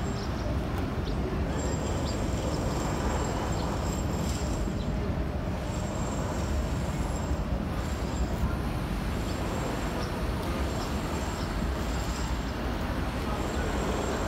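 Steady low rumble of city street traffic, with a faint high whine that comes and goes.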